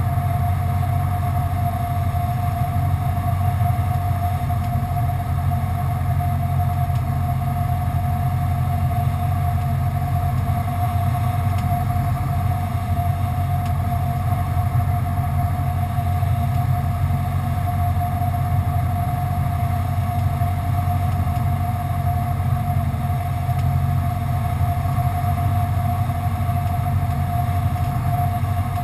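Cessna 172's piston engine and propeller droning steadily, heard inside the cabin in flight, with a thin steady high tone above the low drone.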